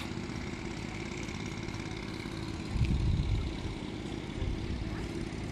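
Steady low mechanical hum like an idling engine, with a faint high steady whine over it; a low rumble swells briefly about three seconds in.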